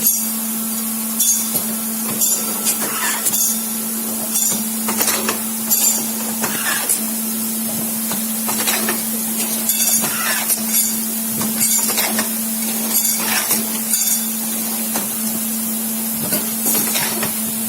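CNC pipe-bending machine running: a steady hum with a high hiss, and short metallic clinks and hisses about once a second.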